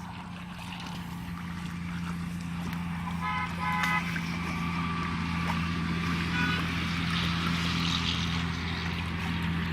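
A small boat motor runs with a steady low hum and grows slowly louder. About three seconds in comes a short, high, pulsing toot.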